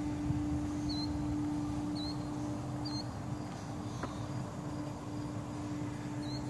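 Outdoor ambience: a steady low hum, with a short high chirp about once a second from a small animal.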